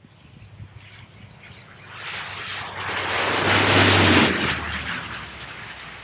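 De Havilland Dash 8-400 turboprop passing close by on its landing approach: it grows louder to a peak about four seconds in, then fades, with a high whine sliding slowly downward and a low propeller hum underneath.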